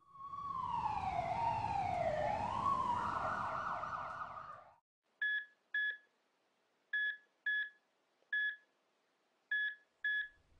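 Emergency vehicle siren wailing, its pitch falling and rising before holding high, then cutting off about five seconds in. It is followed by seven short electronic beeps at uneven spacing.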